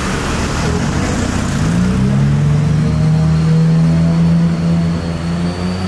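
Street traffic with a road vehicle's engine close by: about two seconds in its pitch rises, then it holds steady as it runs past.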